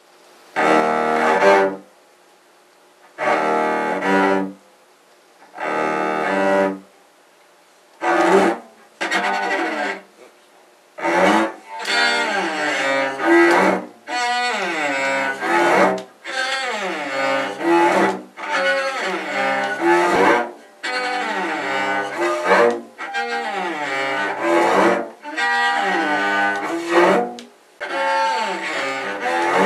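A low bowed string instrument playing: single long bowed notes with pauses between them at first, then, about a third of the way in, continuous phrases of falling note figures.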